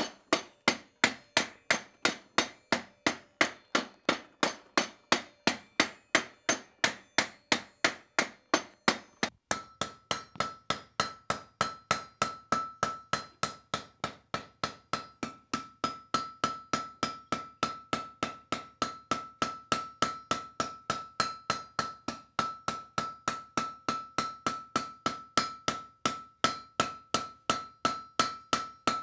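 Hand hammer blows on red-hot iron bar, evenly paced at about three a second. The work is clamped in a vise at first; about a third of the way through it moves onto the anvil, and a steady high anvil ring sounds under the blows.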